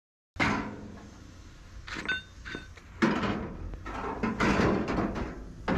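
Steel truck-cab door knocking and scraping against the cab's metal frame as it is handled and offered up to the door opening: a sharp knock at the start, brief metallic rings about two seconds in, then more knocks and rubbing.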